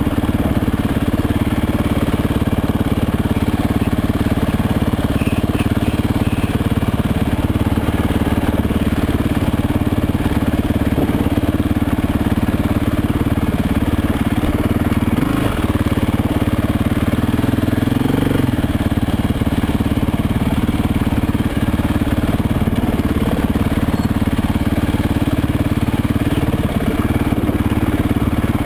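Off-road motorcycle engine running at low speed over rough ground, with a couple of short revs about halfway through.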